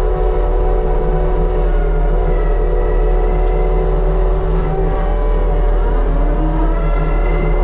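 Mini excavator's diesel engine running steadily under load while driving a hydraulic Rut brush cutter head. A whine shifts slightly upward in pitch about six seconds in.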